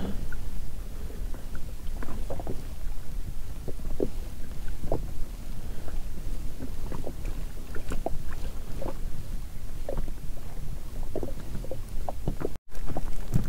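Small waves lapping against the side of an inflatable PVC boat, with irregular small knocks over a steady low wind rumble on the microphone.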